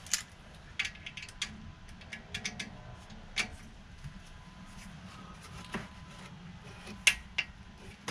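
Clicker torque wrench on the rear differential cover's Torx bolts, set to 20 ft-lb: irregular sharp metallic clicks, some in quick runs, as each bolt is checked for torque. The loudest clicks come near the end.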